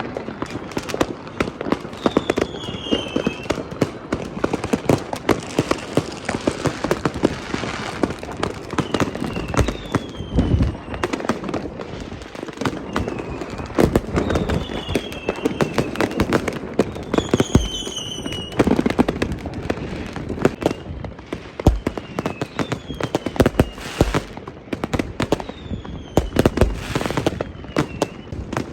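Fireworks and firecrackers going off on all sides in a dense, continuous crackle of rapid bangs, with occasional deeper booms. Several short whistles falling in pitch come from whistling fireworks.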